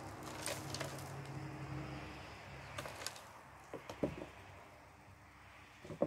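Soil rustling and crumbling as potato plant roots are shaken out and picked through over a plastic tub of potting soil, with sharp clicks and a few light knocks from the handling. A low hum swells and fades in the first half.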